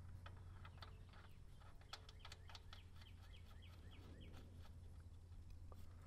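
Near silence: a steady low hum with scattered faint ticks and a short run of faint chirps a little past halfway.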